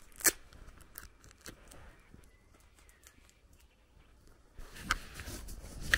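Footsteps on a concrete lane: a sharp step just after the start and a few light scuffs, then a few seconds with hardly any steps. Walking resumes near the end.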